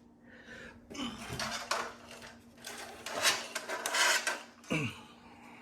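Metal parts of a clothes dryer being handled and fitted back together during reassembly: clattering and rattling in several short bursts, loudest about three to four seconds in.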